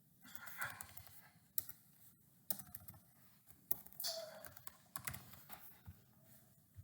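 Typing on a computer keyboard: faint, irregular keystrokes while passenger details are entered into a booking form.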